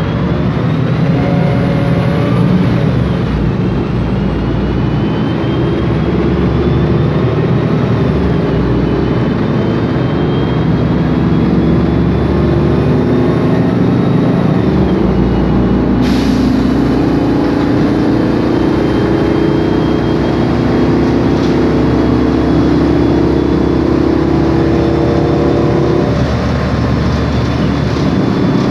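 Inside a 2007 MAN Lion's Classic CNG city bus under way: the MAN E2876 gas engine and Voith DIWA automatic gearbox running, with a high whine gliding up and down from a noisy rear differential. About halfway through, a sudden hiss of air starts.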